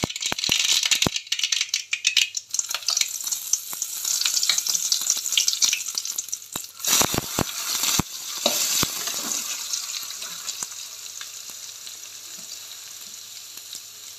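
Mustard seeds crackling and popping in hot oil in a kadai, then a sizzle as chopped onions go into the oil and are stirred with a slotted metal spatula; the frying hiss grows quieter toward the end.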